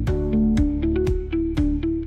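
Background music: a bright melody of short plucked notes over a steady beat.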